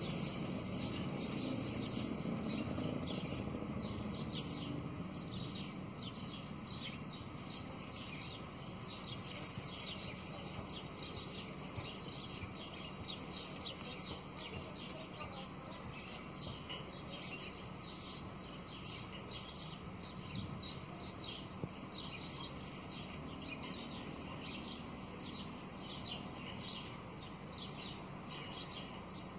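House sparrows chirping over and over, a steady run of short high chirps, above a low, even background noise.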